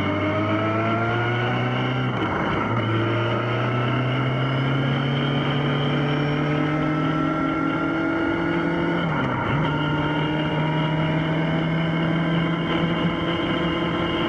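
Yamaha XJ6's 600 cc inline-four engine pulling under acceleration: the revs climb, drop quickly with an upshift about two seconds in, climb slowly again, and drop with a second upshift a little past halfway before holding steady. Wind rush runs underneath.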